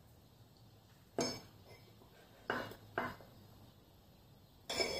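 Kitchen utensil clinking against a dish four times, with gaps of about a second between them, the last clink longer than the others.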